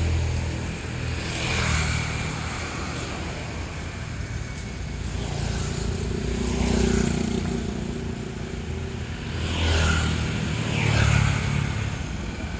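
Large tour bus engines running low as buses pull out, with traffic passing. The sound swells louder a little after the start, in the middle and twice near the end as vehicles go by.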